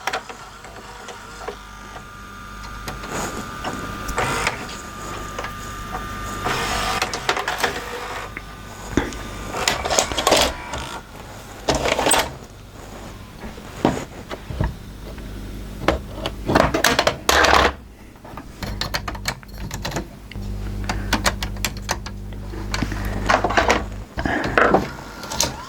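LG VCR tape mechanism running with its motors whirring and irregular clicks and clunks as the loading gear and tape guides move, working in freshly sprayed lithium grease on the guide rails and loading gear.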